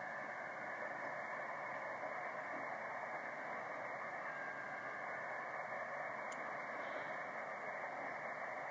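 Ham radio receiver tuned to the 80-meter band, putting out a steady hiss cut off sharply above the voice passband. The hiss is interference from CenturyLink DSL lines swamping the band.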